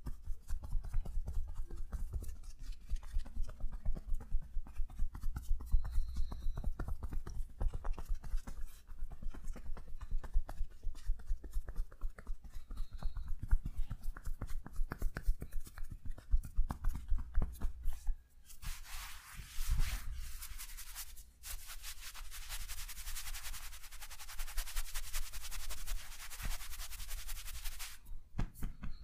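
Rapid, even tapping and slapping massage strokes on the body: dull thuds in a steady rhythm. About two-thirds of the way in they give way to roughly ten seconds of brisk rubbing, a hiss of hands on skin, before the tapping resumes.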